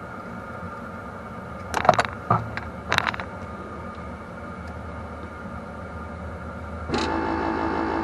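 A few sharp metallic clicks and clinks of hand tools around the bus's brake pedal switch mount, over a steady background hum. About seven seconds in, a louder steady mechanical hum with several held tones starts suddenly.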